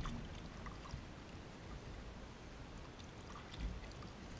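Kayak paddle working the water, with small drips and trickles from the blade. There is a single low knock about three and a half seconds in.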